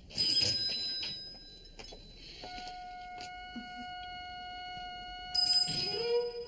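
A small bell rings twice, about five seconds apart, each strike bright and ringing away. A steady held tone sounds between the strikes, and a violin note comes in near the end.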